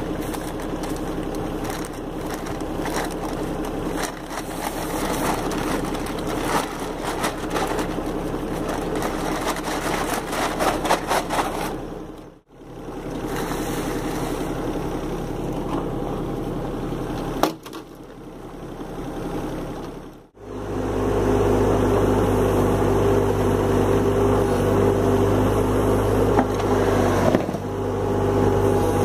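Mini excavator's diesel engine running steadily, with crackling and scraping as a paper bag of cement is emptied into a wooden mixing bin. From about two-thirds in, the engine runs louder as the excavator bucket stirs the concrete in the bin.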